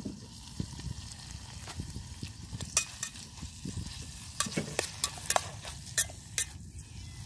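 Chopped chilies and onions sautéing in hot oil in a small metal camping pot, sizzling steadily while a wooden spatula stirs them, with sharp clicks and scrapes of the spatula against the pot, most of them in the second half.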